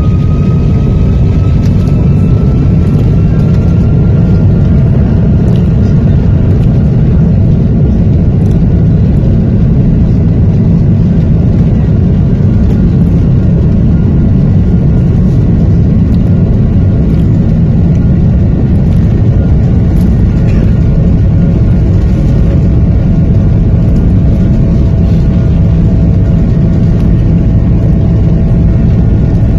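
Airbus jet airliner in flight, heard from a window seat inside the cabin: a loud, steady rumble of engines and rushing air, with a faint engine whine that rises slowly in pitch over the first few seconds.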